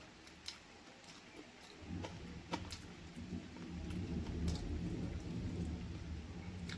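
Close-miked chewing of chicken feet and gizzard curry with rice. There are a few sharp wet mouth clicks, and from about two seconds in a louder, uneven low rumble of chewing.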